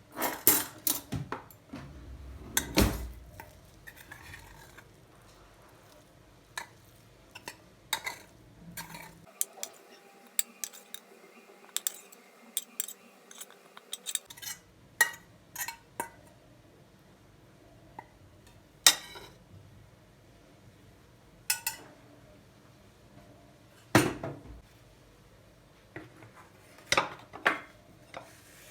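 Dishes and cutlery being handled: irregular clinks and knocks of utensils against crockery, a few of them sharp and loud. A steady hum runs for a few seconds in the middle.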